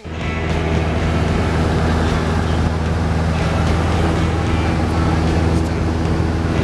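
Piston engine and propeller of a small high-wing light aircraft droning steadily in flight, heard from inside the cabin: an even, deep hum.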